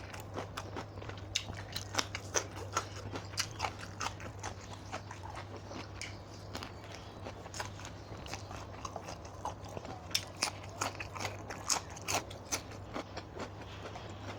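A person chewing food with frequent irregular crisp crunches, eating spicy papaya salad with seafood. A steady low hum runs underneath.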